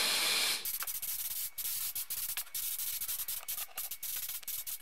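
Gravity-feed spray gun spraying etch primer: a steady hiss for about the first half second, then a rapid, choppy run of short hissing bursts.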